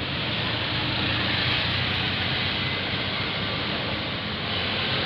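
Steady traffic noise: an engine's low drone under an even hiss of tyres and air, with no horn sounding.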